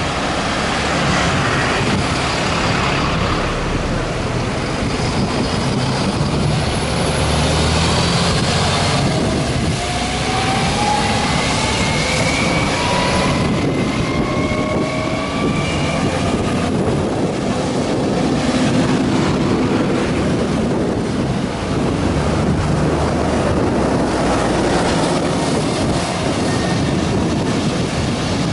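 Road traffic and wind on the microphone from a moving bicycle. A London double-decker bus runs close alongside, and around the middle its drivetrain whine rises steadily in pitch as it accelerates.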